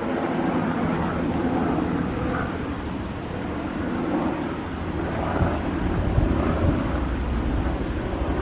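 Bell 206L-4 LongRanger IV helicopter flying low and close: steady noise of its two-bladed main rotor and single turboshaft engine, swelling a little in the middle.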